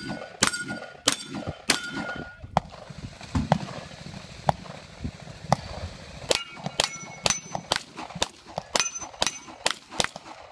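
Gunshots, each followed by the clang and ring of a hit steel target. A few shots from a long gun come about half a second apart in the first two seconds, then after a pause of a few seconds a fast string of pistol shots rings off steel from about six seconds in.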